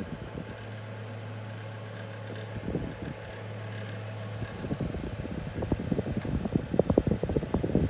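Fridgemaster FM168 mini tower fan running on its highest speed setting, a steady low hum from its motor. From about halfway on, its airflow buffets the microphone in irregular gusts that grow louder toward the end.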